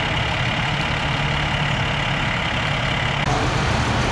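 Fire engines' diesel engines idling with a steady low hum. A little past three seconds in, the sound cuts abruptly to a fire engine driving up over dirt.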